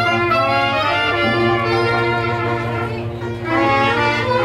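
Traditional jazz band playing, with brass and saxophone carrying the melody over a steady accompaniment; the phrase breaks briefly about three seconds in before the horns come back in.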